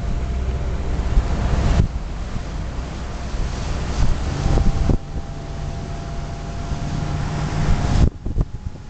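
A motorboat's engine running steadily while the boat is underway, with heavy wind noise on the microphone. The overall level drops suddenly about 2, 5 and 8 seconds in.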